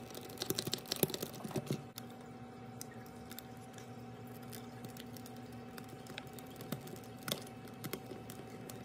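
Scattered light clicks and taps of the I-Dog pup's hard plastic head parts being handled and fitted together, a faint steady hum under them.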